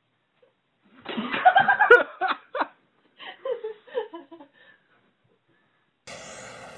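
A person laughing in loud bursts, with one sharp knock about two seconds in, then quieter laughter. Near the end a steady drone begins.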